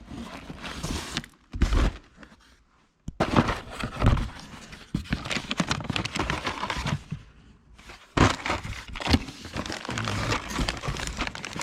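Cardboard shipping boxes being opened by hand: tape and cardboard tearing, flaps and packing material crinkling and rustling in irregular bursts, with a heavy thud about two seconds in and a few knocks as the boxes and parts are handled.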